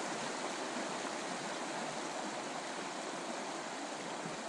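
Steady rushing of a shallow river running over a stony riffle.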